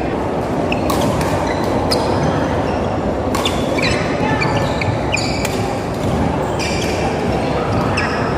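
Badminton play in a large hall: sharp racket strikes on the shuttlecock every second or so, with short squeaks of court shoes on the floor, over a steady background din of the hall.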